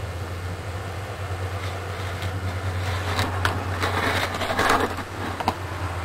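Rustling and handling noise with a few sharp clicks, loudest about four to five seconds in, over a steady low hum.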